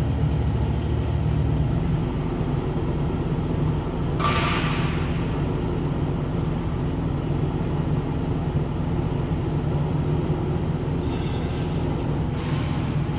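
GY4240 semi-automatic horizontal metal-cutting band saw running: a steady low motor hum, with a brief hiss about four seconds in and again near the end.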